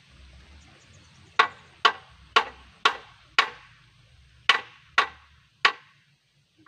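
Hammer blows on the steel handlebar mounting of a hand tractor (two-wheel walking tractor): eight sharp, ringing strikes at about two a second, a run of five, a short pause, then three more.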